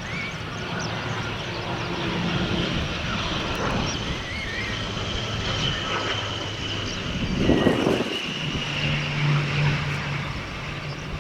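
An airliner's engines running at an airport: a steady rush with a high whine over it, swelling louder about two-thirds through.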